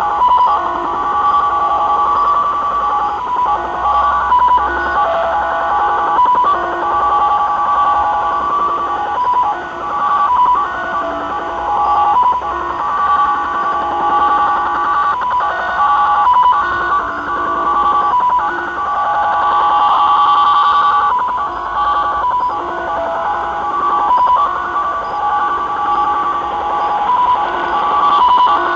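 Japanese Slot Machine (XSL) military digital radio signal received in upper sideband on 4154 kHz through a Tecsun PL-600 shortwave receiver's speaker. It is a fast, continuous warble of several tones hopping around 1 kHz, over a haze of static hiss.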